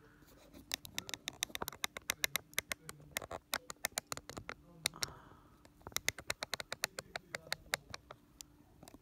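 Foster Victoria vintage circular sock machine turned by its crank, its needles clicking quickly and evenly, several clicks a second, in two runs with a short pause about five seconds in.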